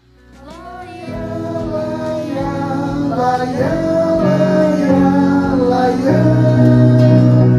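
Slow, gentle song accompaniment fading in after an abrupt cut, with held chords and a melody line that bends in pitch. It fills the break between sung lines of the song.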